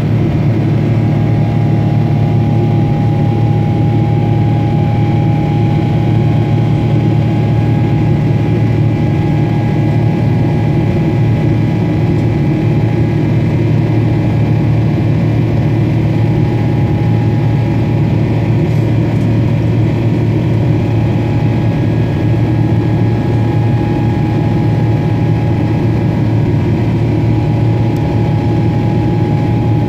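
Steady drone of a Boeing 777-300ER's GE90-115B turbofan engines heard from inside the cabin in flight: a loud, even low rumble with a thin steady whine on top.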